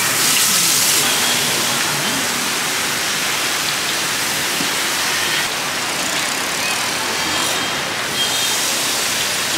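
Battered fritters deep-frying in hot oil: a steady sizzling hiss.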